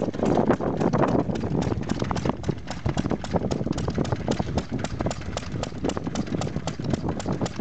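Vintage stationary engines running. First comes a heavier, lower running sound. Then the 2 HP Ruston-Hornsby single-cylinder engine dominates, with a fast, even clatter of clicks.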